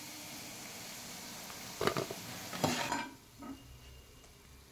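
Cauliflower pakoda pieces sizzling in hot oil, with a metal slotted spoon striking the pan twice. The sizzle drops away about three seconds in.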